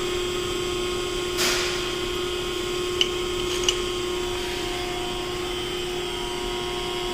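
A motor running with a steady whine, with a short hiss about a second and a half in and two sharp clicks a little later.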